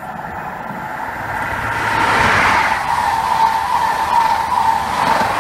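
A Great Western InterCity 125 high-speed train (Class 43 power cars with Mark 3 coaches) running through the station at speed. The rush of wheels on rail grows as it nears and is loud from about two seconds in, with a steady high tone running through it.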